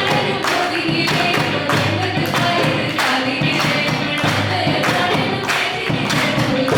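Live devotional music: voices singing together over hand percussion keeping a steady beat.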